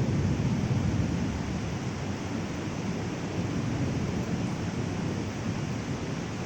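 Heavy rain pouring steadily, with a low rumble underneath that is strongest at the start and slowly dies down.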